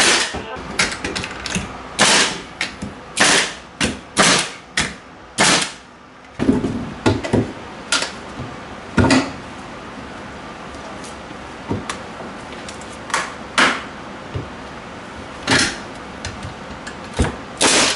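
Pneumatic framing nailer firing nails one after another into wooden floor blocking: sharp shots in quick runs, most densely in the first six seconds and again near the end.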